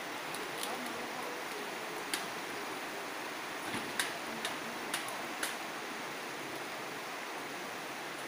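Steady rushing of a river flowing over shallow rapids. Several short, sharp clicks or knocks sound over it between about two and five and a half seconds in.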